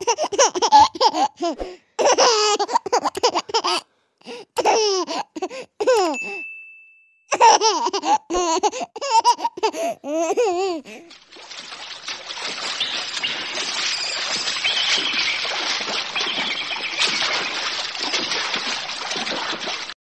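A baby laughing and babbling in short bursts, the pitch swooping up and down, with a brief steady ding in the middle. About halfway through the laughter gives way to a steady rushing hiss that lasts the rest of the time.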